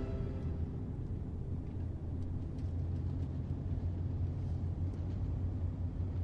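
Steady low rumble, with a few faint ticks.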